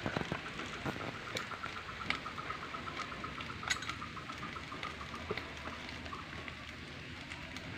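Smouldering wood fire in a homemade tin-can stove, crackling and hissing faintly with scattered sharp pops, one louder pop a little before the four-second mark. A faint rapid chirping trill runs through the first few seconds.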